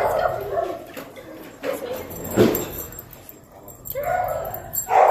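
A dog whining and yipping in short calls, with one sharp, loud sound about two and a half seconds in.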